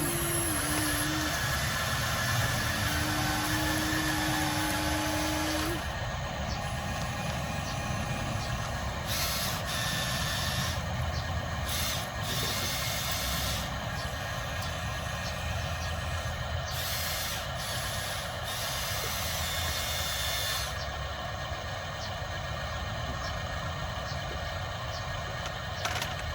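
Radio-controlled scale trucks running: a continuous hiss over a low rumble, with a held tone for a few seconds near the start.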